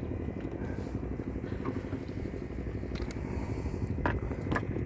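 Boat engine running steadily as a low rumble, with a few light clicks in the second half.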